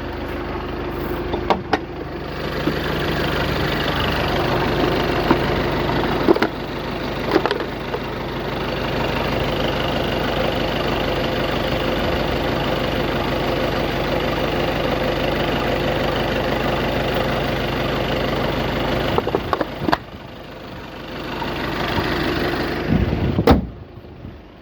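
Volkswagen Passat B8's engine running at a steady idle, with a few sharp clicks over it. It falls away near the end.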